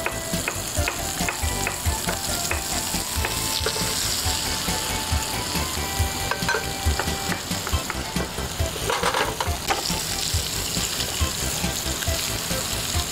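Duck breasts frying skin-side down in a pan, sizzling steadily with scattered small crackles and pops as the fat under the skin renders out.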